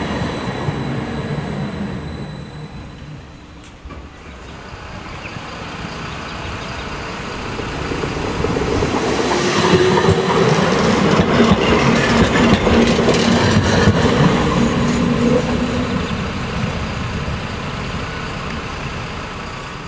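Low-floor electric trams running past close by on their rails: steady wheel-on-rail rumble that drops away around four seconds in, then swells again as another tram rolls past with a low motor hum, easing off near the end.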